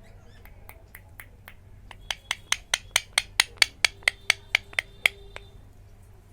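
A rapid, even series of sharp clicks, about four to five a second. They start faint, get loud about two seconds in, and stop a little after five seconds.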